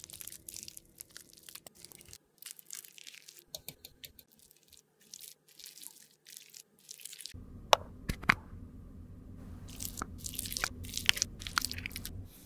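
Close-miked lipstick being cut and scraped with metal tools: a blade slicing through a lipstick bullet and a spatula and scalpel scraping and chopping the soft lipstick, heard as a run of short, crisp crunches and scrapes. A steady low hum comes in about seven seconds in.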